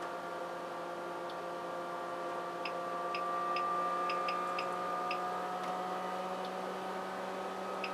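Crown CDi1000 power amplifier under load test, driven with a test signal into load resistors: a steady electrical hum and whine, with a higher tone slowly rising in pitch. Light clicks come in small clusters a few seconds in and again near the end.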